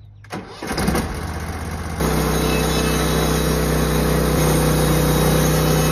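Gas engine of a Norwood LumberPro HD36 band sawmill running, rising within the first second and stepping up to a louder, steady full-speed run about two seconds in.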